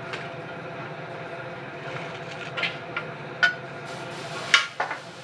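Steel pieces clinking and knocking against a steel workbench as parts and a grinder disc are handled, a few sharp metallic knocks in the second half, the loudest about four and a half seconds in, with brief ringing. A steady shop hum runs underneath.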